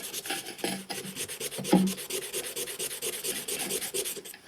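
Cardboard parcel being opened by hand: a fast, even run of rasping, scratching strokes as the packaging is cut or torn open, breaking off briefly near the end.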